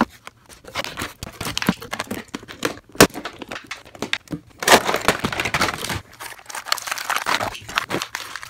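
Cardboard packaging and its clear plastic window being handled, cut free and pulled apart by hand: a busy run of rustles, crinkles and clicks, with one sharp click about three seconds in.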